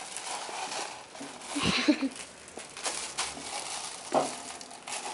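Plastic wrapping on a sleeve of disposable cups rustling and crinkling as a small child handles it, with a few light knocks and clicks, busiest about two seconds in.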